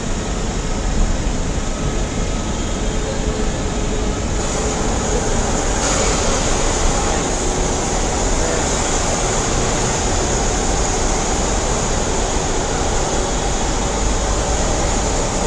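Steady airport-forecourt background noise: a continuous rumble and hiss with no distinct events, growing a little brighter about four to six seconds in.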